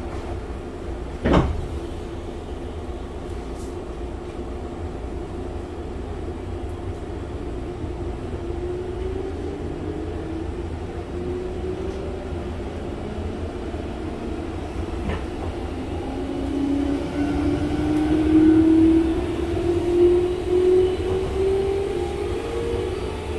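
Meitetsu 5000 series train heard from inside the car, its traction motors whining under field chopper control. The whine rises steadily in pitch and grows louder through the second half as the train gathers speed. A single sharp knock comes about a second in.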